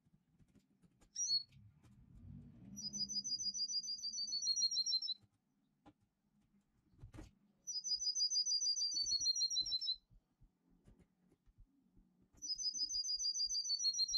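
A recorded 'canto metálico' finch song played in the background as a tutor song: a fast trill of rapidly repeated high notes that falls slightly in pitch at its end, heard three times about five seconds apart, each the same. There is a single sharp click about seven seconds in.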